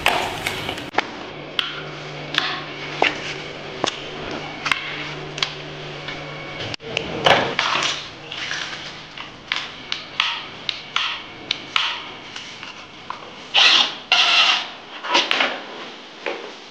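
Parts being taken off a Husqvarna FS450 motorcycle by hand: scattered clicks and knocks of plastic and metal pieces and the rustle of the wiring harness being pulled free, with a few louder rustles near the end. A low steady hum runs under the first half.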